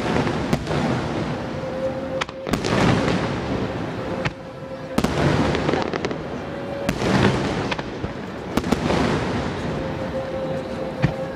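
Aerial fireworks shells bursting: about six sharp bangs spread over the stretch, with a continuous noisy wash between them.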